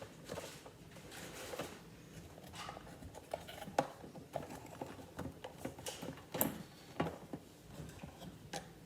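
Handling noise of a small build-it-yourself vending machine being put together: light rustling with scattered small clicks and knocks, a few sharper ones near the middle and later on.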